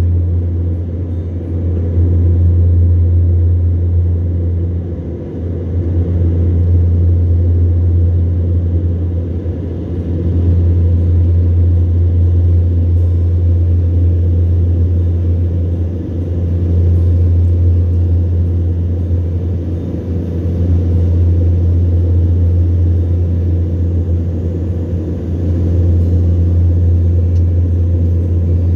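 A boat's engine running with a low, steady drone that swells and eases about every five seconds.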